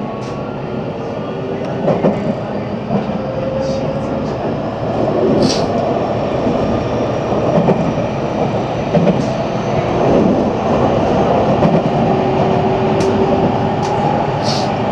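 JR Central 313 series electric train running, heard from the cab: the traction motor and inverter whine, with several steady tones that drift slowly upward and grow louder, over dense wheel-on-rail running noise. A few sharp clicks from the track come through.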